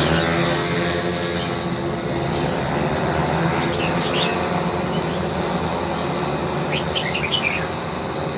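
Racing engines droning from around the track, several steady overlapping tones, with short bird chirps about four seconds in and again near the end.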